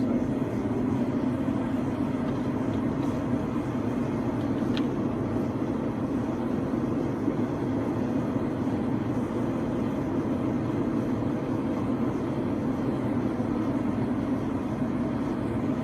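Blacksmith's forge running steadily with an even, unbroken noise, no hammer blows.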